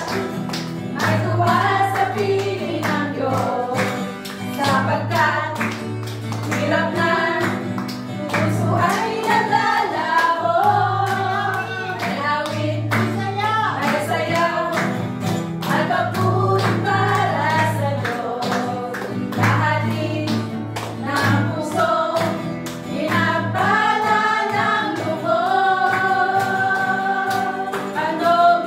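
Women singing a praise and worship song, accompanied by a strummed acoustic guitar.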